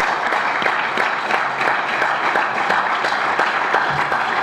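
A crowd applauding: steady clapping from many hands.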